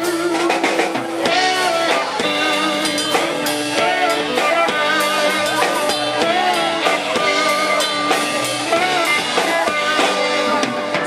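Instrumental break of a blues-rock song: lead guitar plays bent, wavering notes over drum kit and backing band.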